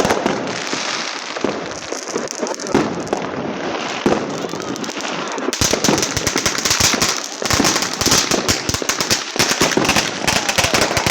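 Fireworks going off in rapid, overlapping pops and crackles; about halfway through the bangs come denser and louder, like a barrage.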